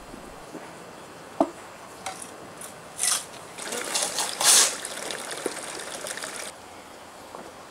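Stone-laying work on garden steps: a sharp knock about a second and a half in, then two loud gritty scrapes over a steady hiss that cuts off suddenly about six and a half seconds in.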